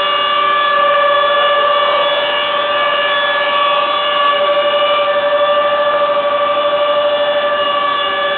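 Plank-gluing machinery running with a loud, steady whine held at one pitch, with several higher overtones over a light machine hum.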